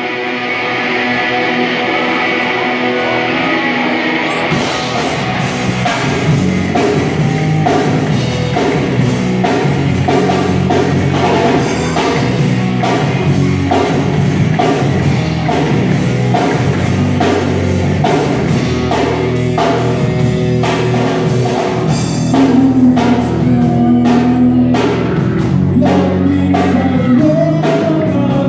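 Live rock band playing: electric guitars, bass and drum kit with a singer. The drums and cymbals come in fully about four seconds in.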